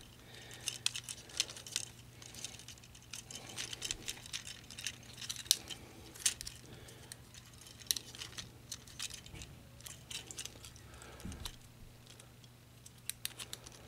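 Plastic parts of a Transformers Studio Series Leadfoot action figure clicking and rattling as hands twist and shift them during transformation: many small, irregular clicks that thin out near the end.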